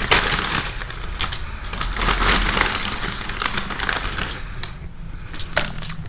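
Crunching, crackling noise: a dense, rapid run of sharp cracks and snaps, as of something being crushed, ending abruptly.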